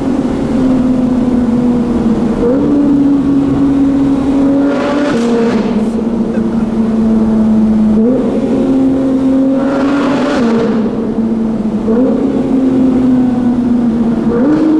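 Porsche 911 GT3's naturally aspirated flat-six, fitted with a full Fi aftermarket exhaust, running at fairly steady revs under way, with a sudden jump or drop in engine pitch every few seconds as gears change.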